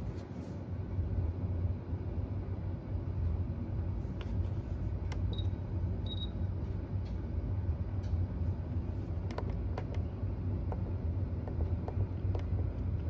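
A steady low hum throughout, with scattered light clicks and knocks from handling the hand-held camera, and two short high-pitched beeps about five and six seconds in.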